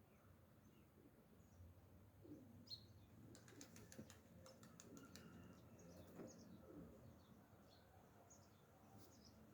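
Near silence with faint, scattered bird chirps and a run of light clicks about three to four seconds in.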